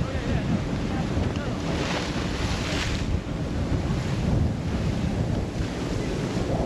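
Wind buffeting the microphone over the wash of sea water around a sailing schooner, with a swell of hissing water about two to three seconds in.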